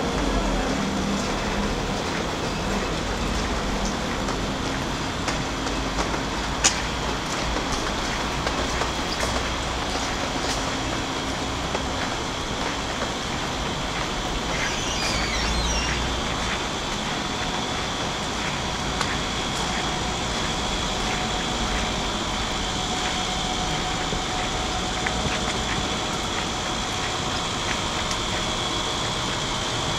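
City street ambience: a steady wash of traffic noise with a low rumble, one sharp click about seven seconds in, and a short high chirping sound around the middle.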